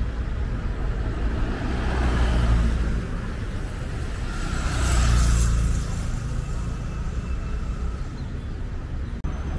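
City street traffic: engines running and vehicles passing, with two louder swells, about two seconds in and again near the middle.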